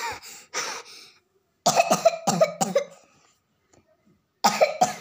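A child coughing in three short bouts, with a quiet pause before the last one.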